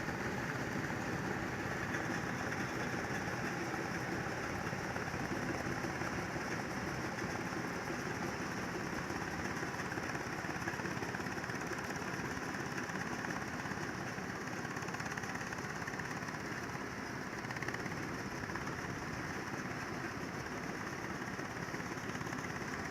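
Combine harvester's engine and machinery running steadily, with no change in speed.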